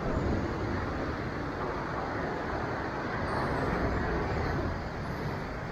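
Sea waves breaking and washing over a rocky shoreline ledge: a steady rush of surf that swells a little about midway.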